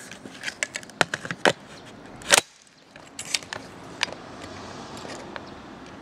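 Western Arms M4A1 CQB-R gas blowback airsoft rifle firing single shots. Several sharp metallic cracks of the gas release and bolt cycling come at irregular intervals, the loudest about two seconds in.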